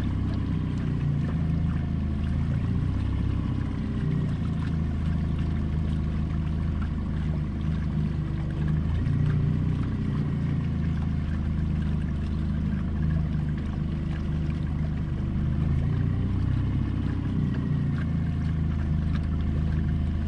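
A boat's outboard motor running steadily at slow harling speed, its pitch rising and easing gently every several seconds.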